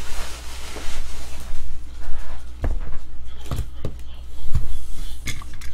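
Sealed cardboard trading-card boxes picked up and set down on a table: a handful of short knocks, after a rustling hiss in the first second or so.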